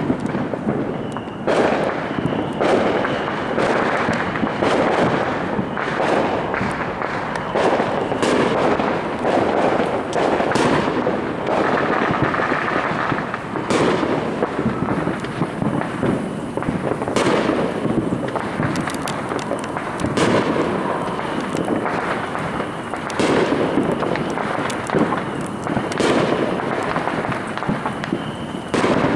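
Aerial fireworks going off in quick succession: sharp bangs every second or so from shells bursting, over continuous dense crackling.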